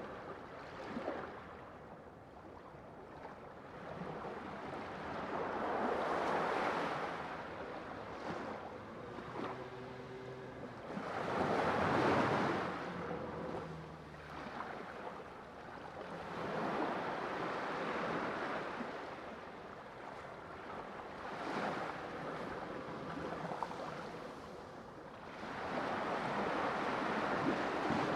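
Ocean surf, waves breaking and washing in and out in slow surges about every five seconds.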